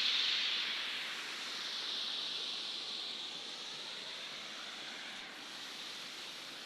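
Water pouring over a small waterfall: a steady rushing splash that slowly grows fainter.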